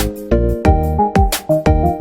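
Upbeat background music: a steady drum beat with kick-drum thumps under short melodic notes.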